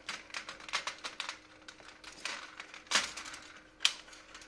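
Irregular light metallic clicks and ticks as the coils of a new heating-element wire spiral are pulled apart and worked onto the insulators of a metal heater plate. Two sharper clicks come about three and four seconds in.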